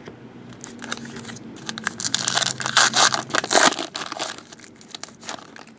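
A foil trading-card pack wrapper being torn open and crumpled by hand: a dense crinkling crackle, loudest from about two to four seconds in.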